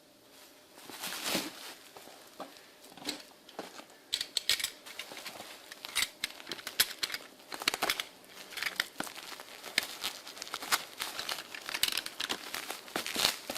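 Packaging being unwrapped by hand, crinkling and crackling irregularly with some tearing, starting about a second in.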